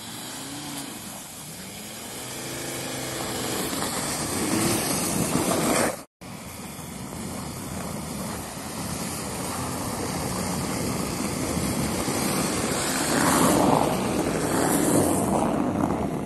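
Volkswagen Touareg SUV driving slowly over a packed-snow road: its engine note rises and falls in the first few seconds over a rushing noise. After a brief dropout about six seconds in, a broad rushing noise builds and swells near the end as the car comes close.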